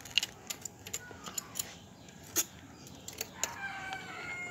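Light, irregular metallic clicks and clinks of tools and parts being handled on the underside of a single-needle industrial sewing machine during cleaning of its clogged oil filter.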